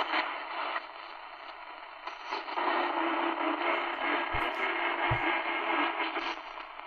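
Static and hiss from the speaker of a Tecsun PL-450 portable radio as it is tuned slowly up the medium-wave band, with no muting between stations. A steady low tone comes in about two and a half seconds in, and there are two low thumps a little before the end.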